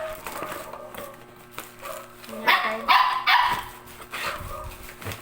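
A dog barking three times in quick succession, about halfway through.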